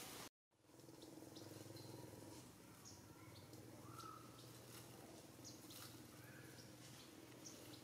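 Faint outdoor ambience: a low steady hum with a few short, faint chirps scattered through it, after a brief dropout near the start.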